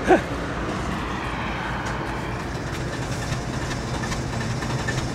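Car engine running with steady road rumble, heard from inside the cabin.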